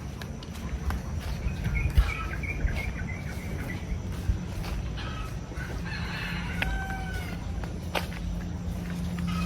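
Chickens calling, with a rooster crowing about six seconds in, over a steady low rumble.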